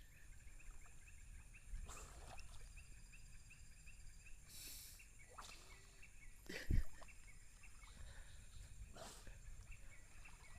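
Faint outdoor ambience with a steady, rhythmic high-pitched chirping from an animal. A few brief rustling noises come through, and there is a thump about two-thirds of the way in.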